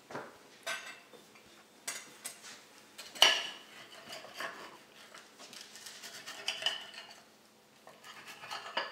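Knife and fork scraping and clinking against a plate as food is cut, in a string of separate clicks and scrapes, the loudest clink about three seconds in.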